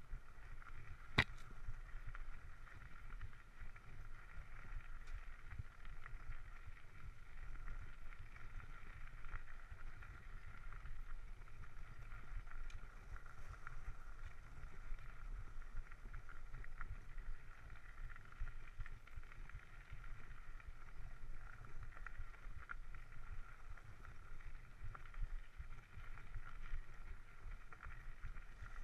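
Mountain bike rolling along a dirt singletrack, recorded from a chest-mounted GoPro: a steady rumble and hiss of the ride, with one sharp click about a second in.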